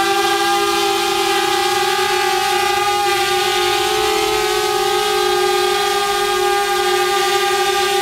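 DJI Mavic Air quadcopter hovering in place, its four propellers giving a steady, loud, high-pitched whine that wavers slightly in pitch.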